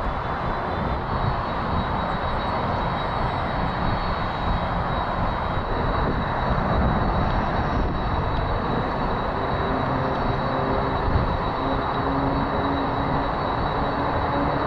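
Boeing 767 freighter's General Electric CF6 turbofans running at low thrust while the jet taxis: a steady rumble with a thin high whine over it. A few steady lower hums join in after about ten seconds.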